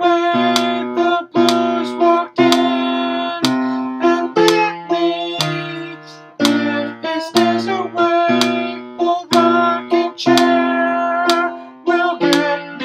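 Piano played in slow chords, a new chord struck about once a second, each one ringing and fading before the next.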